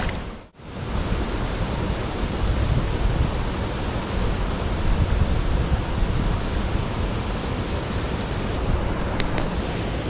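Steady rushing outdoor noise, heaviest in the low end, with a brief drop-out about half a second in.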